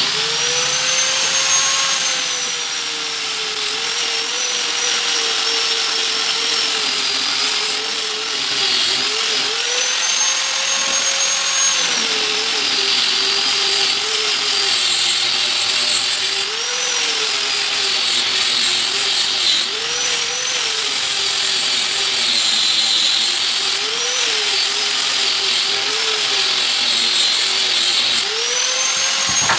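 Handheld electric power tool running with a steady motor whine, its pitch sagging and recovering again and again as it works under load on wood.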